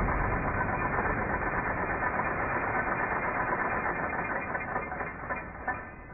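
Minigun's electrically driven barrel cluster whirring and winding down just after a burst, fading steadily, with a few sharp clicks near the end.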